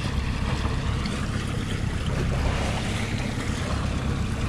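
Steady wind rumble on the microphone over water sloshing against a boat's hull.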